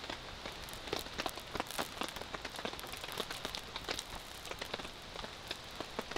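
Cast iron skillet of octopus in oil sizzling over a crackling wood fire, with a steady hiss and sharp, irregular pops several times a second.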